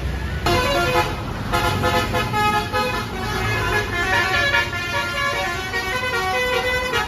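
Tour bus's multi-tone basuri 'telolet' air horn playing a quick tune of stepped notes, starting about half a second in.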